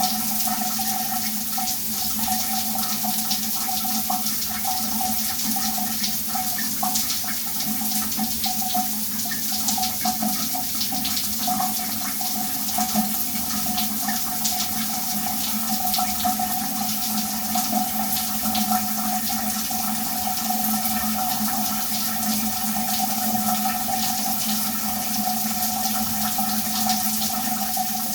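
Shower running steadily: a continuous hiss of water spraying and splashing, with no breaks or changes.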